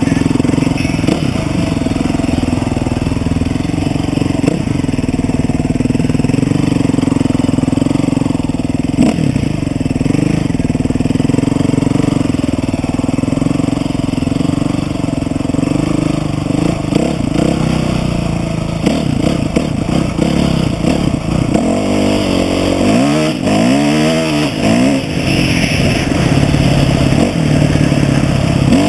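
Dirt bike engine running steadily, its revs rising and falling several times about two-thirds of the way through.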